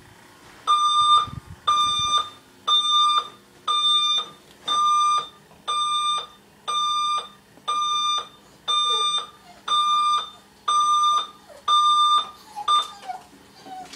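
Digital bedside alarm clock beeping: a steady high electronic beep about once a second, a dozen times over. The beeping cuts off partway through a short final beep near the end, as the alarm is switched off with the button on top.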